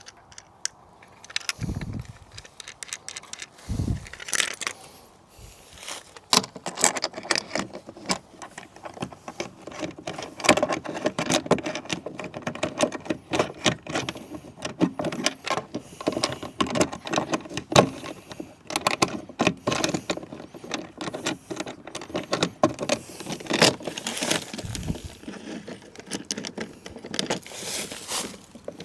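Small metal mounting hardware (bolts, nuts and a locking plate) clinking and rattling as it is handled and fitted, with a few dull thumps.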